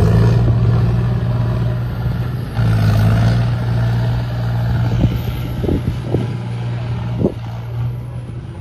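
Diesel tractor engine running hard as the tractor drives through wet sand and mud, a steady low drone that dips briefly about two and a half seconds in.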